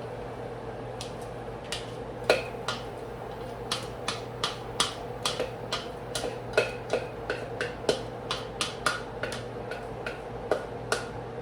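A cooking utensil tapping and clicking against a pan as fajita meat and peppers are stirred, in irregular sharp taps about two to three a second, over a steady low hum.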